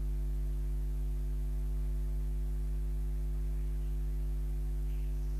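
Steady low electrical mains hum with a faint buzz, unchanging throughout.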